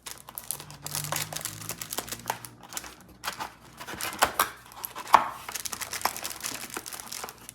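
Keyboard packaging being handled as the cable is taken out: irregular crinkling and rustling with scattered clicks and taps, a couple of louder knocks about four and five seconds in.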